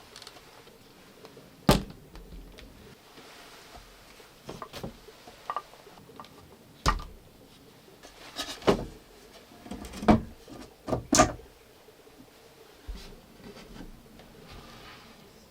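Irregular sharp knocks and clunks in a small enclosed room, about eight of them with pauses between. The loudest come a little under two seconds in, around seven seconds, and in a cluster between about ten and eleven seconds.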